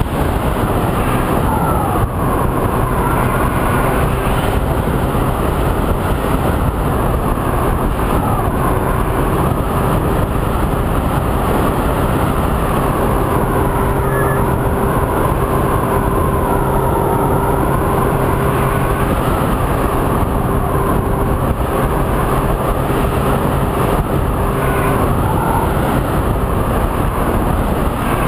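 Onboard sound of a Multiplex Easy Star RC plane in flight: the electric motor and pusher propeller whine under heavy wind rush, the whine's pitch rising and falling.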